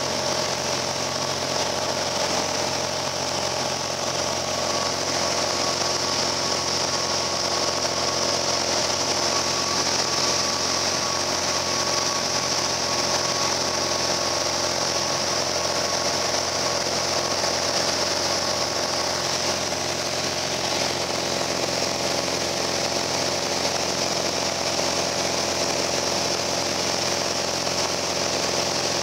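Cabin noise of a Piper Cherokee Arrow single-engine light aircraft in flight: the piston engine and propeller give a steady drone with a hum of fixed pitch, unchanged throughout.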